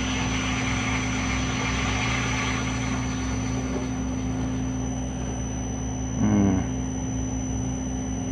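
Metal lathe running steadily with its motor and drive humming while a form tool cuts into a spinning steel blank. A brief, louder buzz comes about six seconds in.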